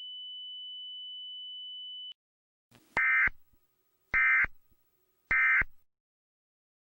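Electronic alert tones from a mock Emergency Alert System broadcast: a steady high tone cuts off about two seconds in. It is followed by three short, identical data bursts about a second apart, in the pattern of the EAS end-of-message code.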